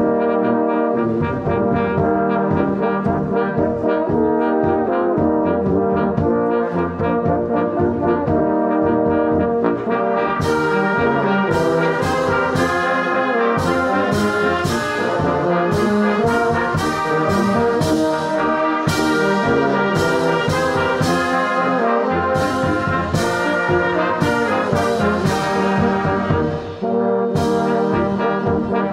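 Youth brass band of trumpets, euphoniums and sousaphone playing a hymn tune in full harmony, with percussion strikes joining about ten seconds in.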